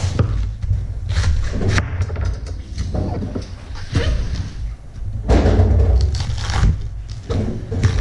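A large knife chopping through heads of cabbage on a table, with repeated dull thuds as the blade cuts through and hits the tabletop.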